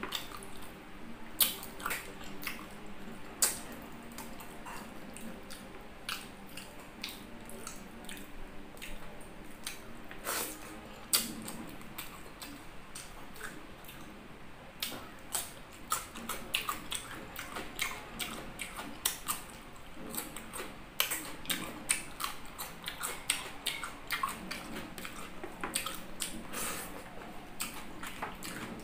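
Close-up eating sounds of a person eating boiled chicken feet and rice by hand: wet chewing, lip smacks and many sharp little clicks throughout, over a faint low hum.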